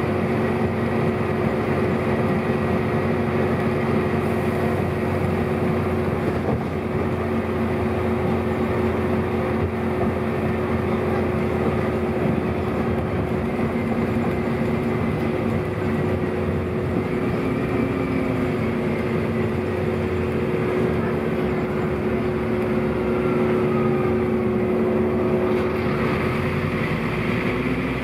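Scania DC09 9.0-litre diesel engine of a Scania N230UB bus running with a steady drone. Its low note shifts near the end.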